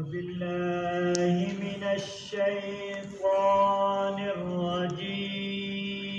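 A man chanting a Quran recitation (tilawat) in a slow, melodic style, holding long drawn-out notes in several phrases with small steps in pitch between them.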